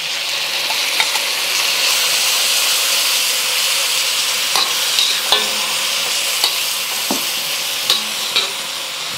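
Stir-fry sizzling steadily in a hot wok as sauce is poured in and tossed, with a metal wok spatula scraping and clicking against the pan at scattered moments.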